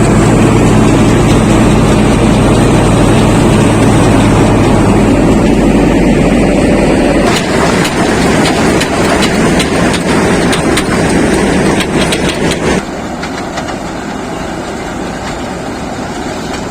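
Combine harvester running while harvesting sunflowers, a steady engine and machinery drone. About seven seconds in the sound changes to a rattling run of clicks, and near the end it drops to a quieter steady hum.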